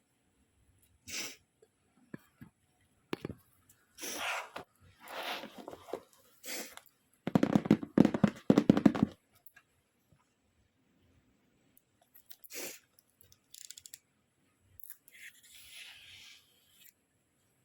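Packaging being handled and opened: scattered rustles and crinkles of paper and plastic, with a loud stretch of rapid crackling about halfway through.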